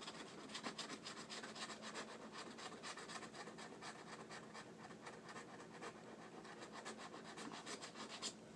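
Scratching the coating off a paper scratch-off lottery ticket, in quick, faint, repeated short strokes.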